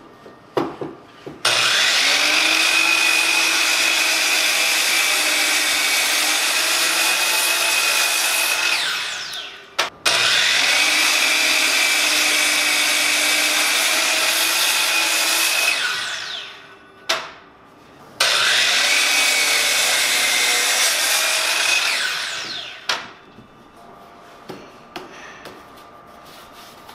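DeWalt sliding compound miter saw run three times, each for several seconds, as its blade crosscuts half-round pieces of bark-covered log; each run ends with the blade's whine falling away as it spins down. After the third run there are only a few light clicks of the wood being handled.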